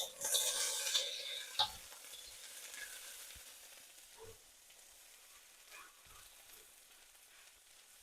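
Egg fried rice with green beans sizzling in a frying pan as it is stirred, with a spatula scraping, loudest in the first second and a half. A sharp clank of the spatula on the pan comes about 1.6 s in, then the sizzle carries on more quietly with a couple of light taps.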